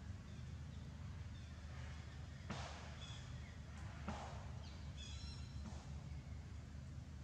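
A few short, high-pitched animal calls, two of them harsh and noisy, over a steady low rumble.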